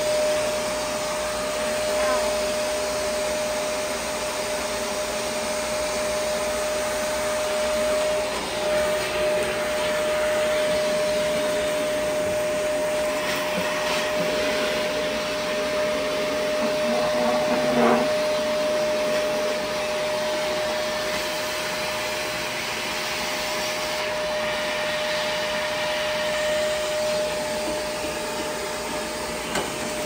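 Shark upright vacuum cleaner running steadily as it is pushed over a tile floor, its motor giving a constant whine over the rush of air. One brief knock stands out a little past the middle.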